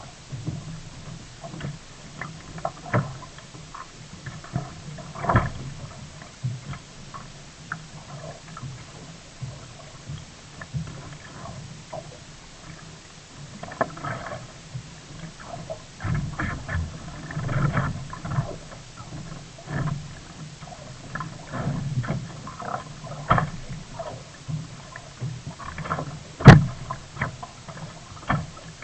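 Sea kayak on the water: paddle strokes splashing and water sloshing against the hull at an irregular pace, with scattered knocks and one sharp, loud knock near the end.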